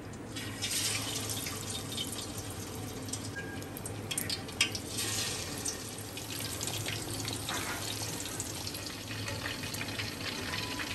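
Masala-coated fish pieces deep-frying in hot oil in an aluminium wok: a steady sizzling hiss with crackling and popping, rising as pieces go into the oil, with the sharpest pop about four and a half seconds in.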